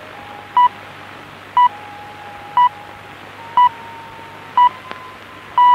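BBC Greenwich Time Signal, the pips, heard over shortwave radio: five short 1 kHz beeps a second apart, then a longer sixth pip that marks the exact start of the hour. Steady shortwave hiss and a faint drifting whistle lie under the pips.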